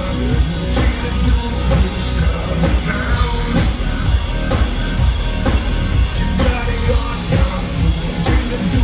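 Live pop-rock music over a concert PA, heard loud from within the audience: a band with drums, and a singer on stage.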